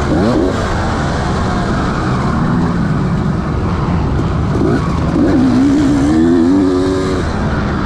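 Motocross bike engine revving up and down as it is ridden round a dirt track, its pitch rising and falling with the throttle over a steady rushing noise.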